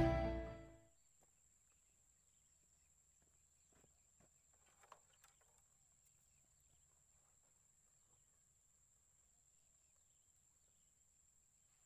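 Background music fading out within the first second, then near silence: faint outdoor ambience with a steady thin high-pitched hum and one faint tick about five seconds in.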